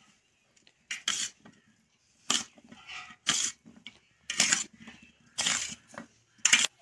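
Metal spoon mixing boiled diced potatoes in a steel bowl, with short scraping, squelching strokes against the bowl about once a second, six or so in all.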